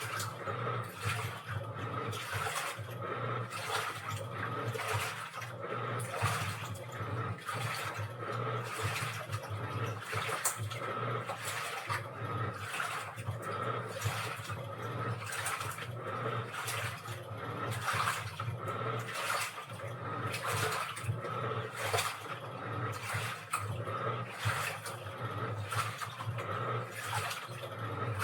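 Washing machine running mid-cycle: water sloshing in the drum in uneven surges over a steady low hum.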